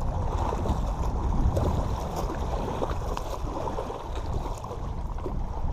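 Wind buffeting the microphone in a heavy low rumble, over small waves lapping against a rocky shoreline.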